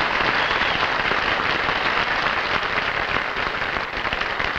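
Studio audience applauding, a dense, steady clatter of many hands clapping.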